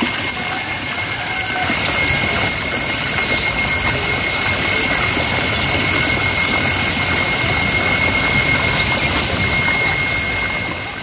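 Steady rushing and splashing of a water jet pouring from an inlet pipe into a fish tank, with a thin, steady high whine running under it.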